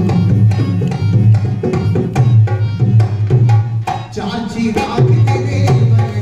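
Rajasthani folk music with a hand drum played in a quick, steady rhythm over other instruments, dipping briefly about two-thirds of the way through.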